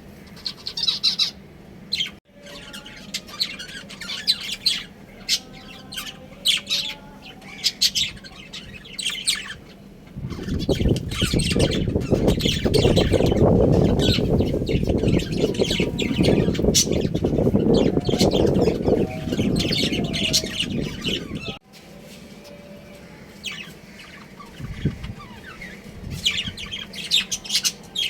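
Budgerigars chirping and squawking in quick, overlapping bursts. For about ten seconds in the middle, a louder rustling noise covers them, then the chirping carries on.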